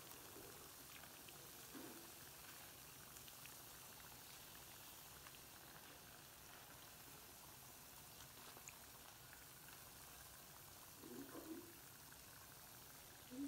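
Faint, steady sizzle and crackle of ring doughnuts deep-frying in hot oil, with a couple of brief low knocks near the end.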